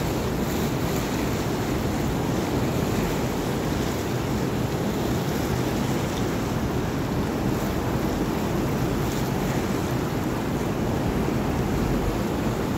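Fast, turbulent river current rushing steadily past the boat, with wind buffeting the microphone.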